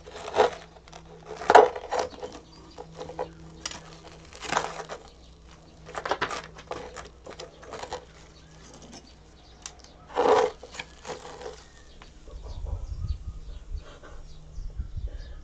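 Metal tongs scraping and crunching against hardened aluminium and a charred paper cup-noodle cup as the solidified metal is worked loose, in a string of short sharp scrapes. A low rumble comes near the end as the aluminium-capped noodle block is lifted out.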